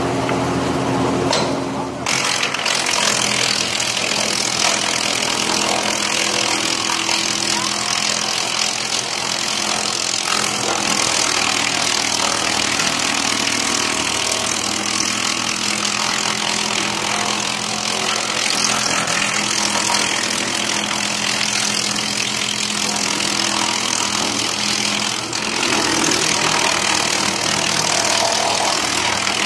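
Wood chipper running steadily under power, its engine hum overlaid by a dense, harsh hiss that fills in about two seconds in.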